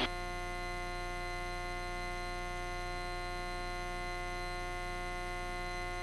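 Steady, unchanging drone of a piston airplane's engine and propeller at climb power, heard through the cockpit intercom as a buzzing hum.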